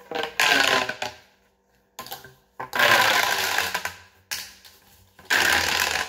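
Joined plastic pop tubes being stretched out, their corrugated ribs snapping open in three quick runs of rapid crackling clicks.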